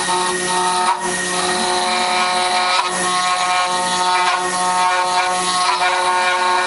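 CNC router spindle running steadily with a pitched whine while its milling bit cuts through the workpiece, a constant grinding hiss of the cut over it. The level dips briefly about a second in.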